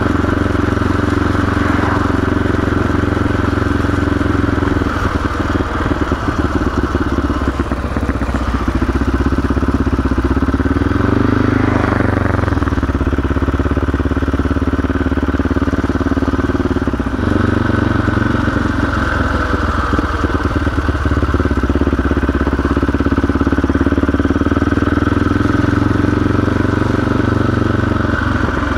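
CCM 604e supermoto's single-cylinder four-stroke engine running under way, its revs rising and dropping a few times as the rider changes speed and gear.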